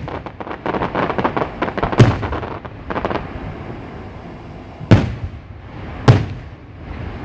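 Fireworks display: a rapid run of crackling pops for the first three seconds, with a loud bang about two seconds in, then two single loud shell bursts about five and six seconds in.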